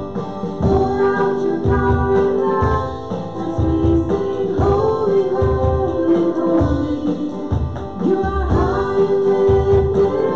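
Worship song in a gospel style: singing with held notes over a band with a steady drum beat.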